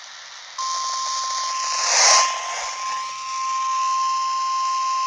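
NOAA Weather Radio warning alarm: one steady 1050 Hz tone starting about half a second in and held, over radio hiss that swells sharply for a moment about two seconds in.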